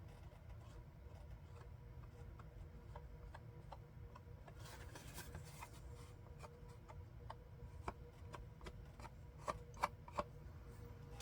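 Faint handling noises of paper crafting at a desk: small scattered clicks and taps, a brief rubbing rustle about five seconds in, and a few sharper taps near the end, over a low steady hum.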